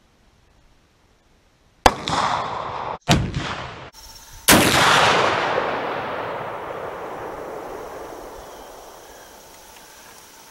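A cap-lock muzzleloading rifle with a musket cap firing. Sharp loud cracks come about two and three seconds in, then the loudest report about four and a half seconds in, which dies away slowly over some five seconds.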